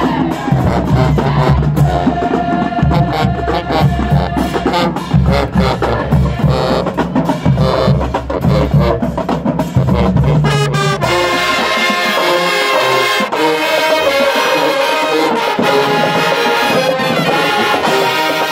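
High school marching band playing brass music with sousaphones and drums. About halfway through, the heavy low drums and bass drop away and the higher horns carry on alone.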